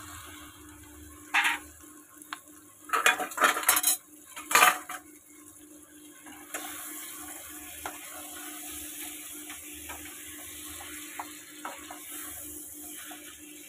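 A metal colander and spatula clank loudly against a non-stick pan several times as boiled taro leaves are tipped in. Then the leaves sizzle steadily in the hot oil and masala, with light scrapes and taps of the spatula stirring them.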